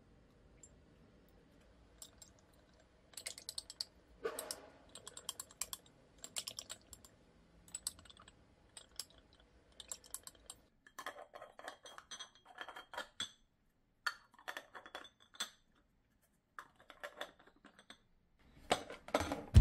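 A wooden stick stirring milk in glass yogurt-maker jars, tapping and clinking quickly against the glass in clusters with short pauses, as the fermented-milk starter is mixed in. Near the end, plastic lids are set on the jars.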